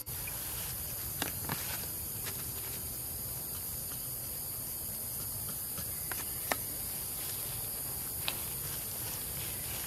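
Steady outdoor background noise, a high hiss over a low rumble, with a few scattered sharp clicks; the loudest click comes about six and a half seconds in.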